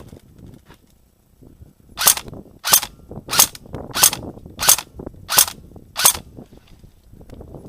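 Airsoft gun fired seven times in semi-auto, sharp cracks about two-thirds of a second apart.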